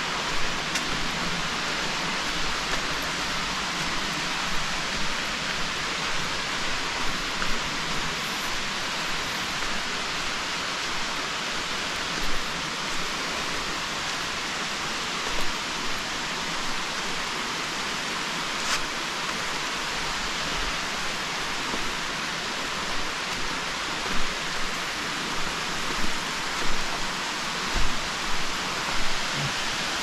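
Waterfall: a steady, even rush of falling water. Occasional soft low thumps, more frequent near the end.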